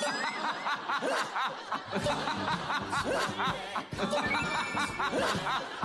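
Several men laughing in rapid 'ha-ha' bursts over light background music.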